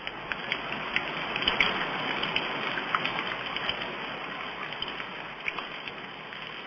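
Water rushing and splashing over a waterfall into rapids: a steady rush with many small splashes.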